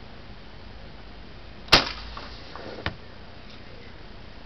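BB gun shot hitting an aerosol hairspray can: one sharp, loud crack a little under two seconds in with a short tail, then a lighter click about a second later.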